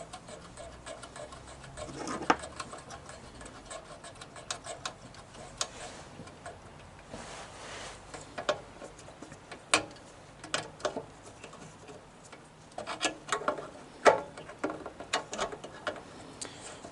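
Irregular light clicks and taps of tools and small mower parts being handled, coming in clusters with short gaps between.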